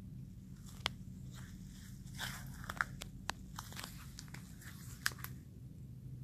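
Irregular crackling and sharp clicks of dry leaves and twigs being disturbed in mangrove leaf litter, starting about a second in and stopping about a second before the end, with three louder snaps among them. A faint steady low hum runs underneath.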